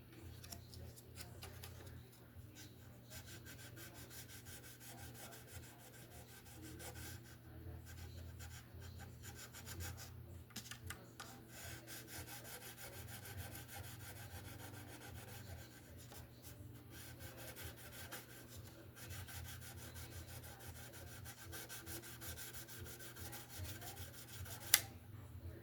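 Fine 2500-grit sandpaper rubbing back and forth on mandolin frets, polishing them to a shine. It is a faint, quick run of strokes broken by a few short pauses, with a sharp click near the end.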